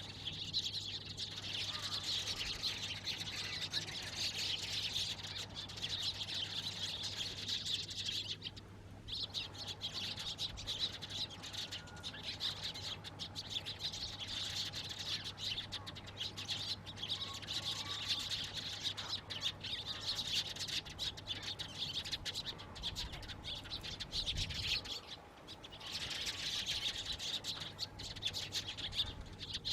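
Many Eurasian tree sparrows chirping and chattering together in a dense, continuous chorus, with a brief lull about nine seconds in and another about twenty-five seconds in.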